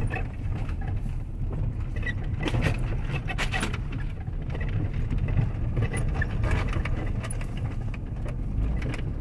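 Car cabin on a bumpy dirt road: steady low rumble of the engine and tyres, with scattered rattles and knocks as the car shakes over the ruts, most of them a few seconds in.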